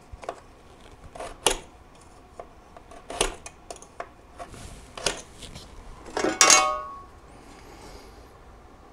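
A scratch awl scribing a line along a steel bracket against a snowmobile's aluminum tunnel: a series of short metallic scrapes and clicks, about five, the loudest near the end with a brief metal ring.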